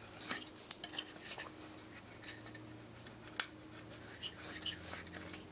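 Irregular small clicks and scrapes of an engine-computer circuit board with a plastic connector strip being handled and turned in the hands, with one sharp click about three and a half seconds in. A faint steady low hum underneath.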